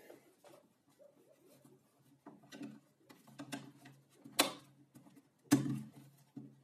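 Scattered light clicks and knocks of hands handling the plastic handle and trigger area of a circular saw, with two sharper clicks about four and a half and five and a half seconds in.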